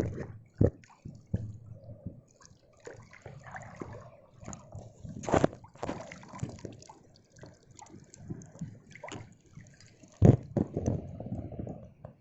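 Seawater sloshing and splashing in the surf around a wading angler, in irregular surges, with louder splashes about five and ten seconds in.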